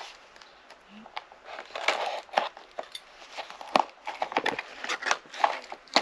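Small cardboard parts box being opened by hand: cardboard and packing rustling and crinkling, with irregular sharp clicks and taps.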